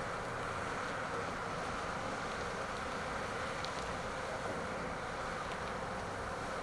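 Steady distant city traffic hum, an even drone with no distinct events.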